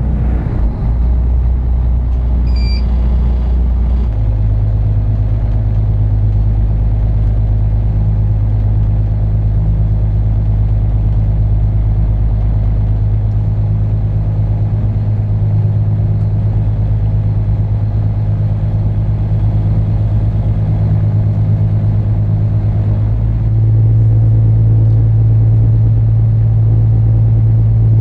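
Inland cargo barge's diesel engine running steadily, a low drone. Its note changes about four seconds in, and it picks up and gets louder about twenty-three seconds in as the barge leaves the lock.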